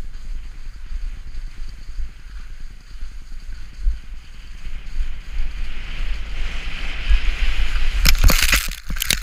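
Wind buffeting the camera microphone while skiing downhill, with the hiss of skis sliding on snow growing louder about halfway through. Near the end come a few sharp knocks or scrapes.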